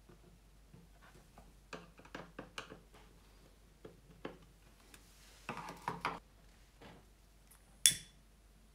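Light clicks, taps and scrapes of hands handling a hard 3D-printed plastic case on a desk, with a denser cluster of knocks and rustling a little past halfway. Near the end a lighter is struck with one sharp click.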